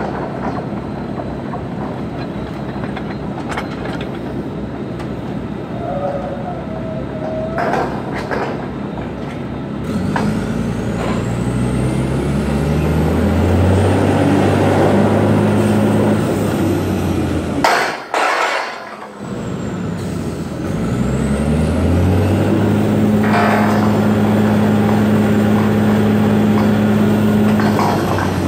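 Workover rig's engine running at idle with a few metal clanks, then revving up about a third of the way in and running hard under load as the drawworks moves the blocks. It drops off with a clank a little past the middle, revs up again a few seconds later and holds steady.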